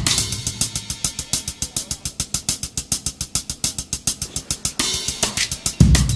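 Background music: a drum-kit beat with fast, even hi-hat ticks. The bass drum drops out and comes back near the end.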